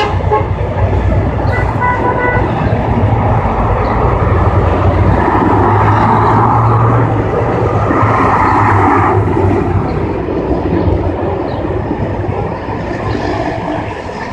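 Heavy military trucks driving past, their engines running with a steady low rumble that grows loudest as a six-wheel Ural truck carrying a covered rocket launcher passes close, then fades.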